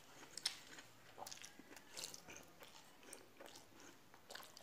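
Faint sounds of eating by hand: fingers working soaked rice in water in a stainless steel bowl, with scattered small clicks, the sharpest about half a second in, and chewing.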